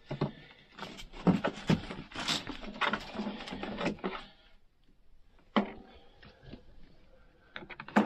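Plastic clicks, knocks and rustling as a 90-degree 12 V DC power plug and its cord are handled and pushed into a fridge freezer's DC socket. One sharper click comes about five and a half seconds in, followed by a few light taps near the end.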